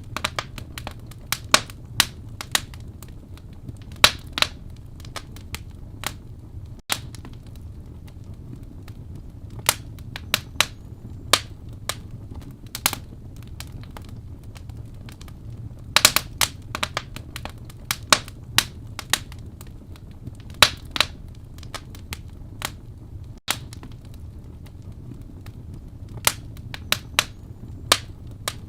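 Wood fire burning in a fireplace, crackling and popping: sharp, irregular snaps over a steady low rumble of the flames.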